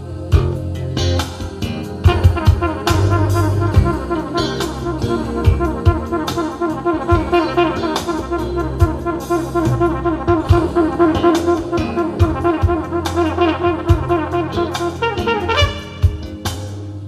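A jazz band recording with a brass solo, played back through Jamo S606 loudspeakers and picked up by a microphone in the room. About two seconds in, the brass starts a fast stream of rapid repeated notes over the band, and it thins out near the end.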